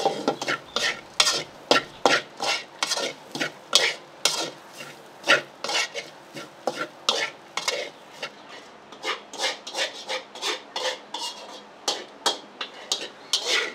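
A metal spatula clanging and scraping against a wok in quick, irregular strokes, about two or three a second, as food is stir-fried over a faint sizzle.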